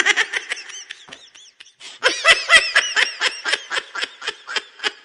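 A person laughing hard in a rapid string of high-pitched "ha" bursts, quieter at first and much louder from about two seconds in.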